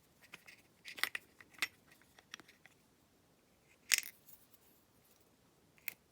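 Small sharp clicks and taps, about half a dozen spread irregularly, with one louder click about four seconds in, from handling a Brady 71/40 plastic lockout padlock's parts while a small locking ball is fitted into the shackle-side groove.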